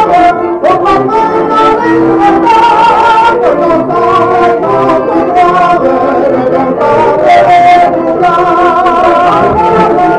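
Street barrel organ playing a tune, its reedy pipe notes held and changing steadily in a melody, with a voice singing along over it in places.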